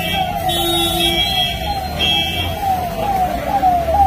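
Police vehicle siren sounding in quick repeating falling sweeps, about two a second, over the low running of the convoy's engines.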